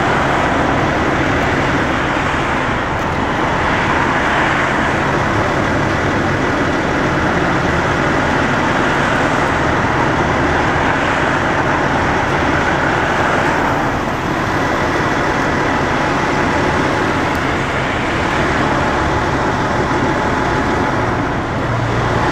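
Steady highway traffic noise from a long line of cars and pickup trucks driving past below, swelling and easing slowly as vehicles pass.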